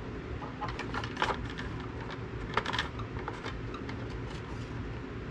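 Light clicks and scrapes of a riding mower engine's oil dipstick being handled and pushed back into its tube, sharpest about a second in and again near three seconds, over a steady low hum.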